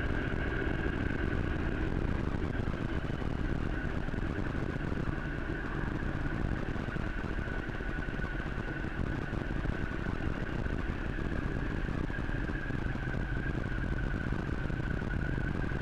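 Vehicle running steadily downhill on a mountain road: a continuous low rumble with road and wind noise and a steady high whine over it.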